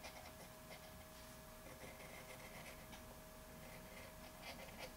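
Faint scratching of quick drawing strokes on paper, in short irregular strokes, over a steady faint hum.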